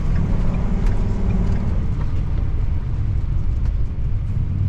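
Motor vehicle running with a steady low rumble, with faint scattered ticks over it.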